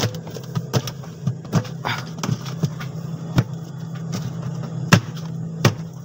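Plastic evaporator cover being fitted into a Samsung inverter fridge's freezer compartment: a series of sharp knocks and clicks, the loudest near the end, over the steady low hum of the running fridge.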